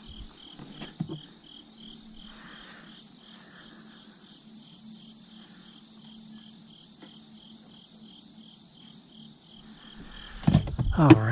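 Insects chirping: a steady high hiss of insect song with a regular chirp repeating about three times a second.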